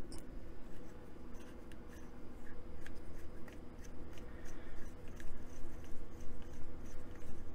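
A hex driver turning a thread-locked screw into a model truck's engine mount: faint scattered clicks and scrapes of the metal tool and screw, over a steady low hum.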